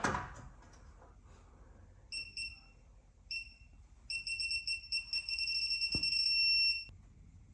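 High-pitched electronic beeping: two short beeps, then a run of quick beeps that merges into a steady tone and cuts off sharply. There is one sharp click near the end of the steady tone.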